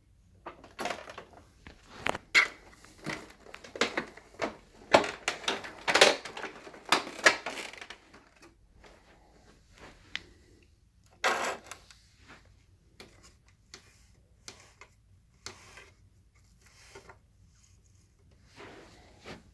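Irregular plastic clicks, knocks and clatters from a Dirt Devil upright vacuum being handled, with its motor not running. They come thick and fast for the first several seconds, then thin out to scattered knocks, with a short burst about eleven seconds in.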